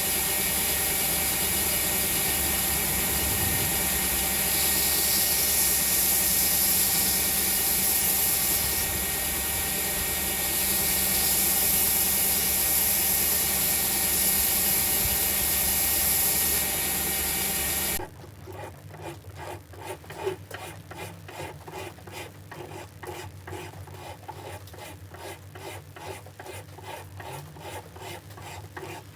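A power tool, most likely a grinder or similar abrasive machine, runs steadily with a strong high hiss, shifting level a few times, then cuts off abruptly about two-thirds of the way in. It is followed by rhythmic back-and-forth strokes of a steel knife blade being rubbed by hand on an abrasive, a few strokes a second.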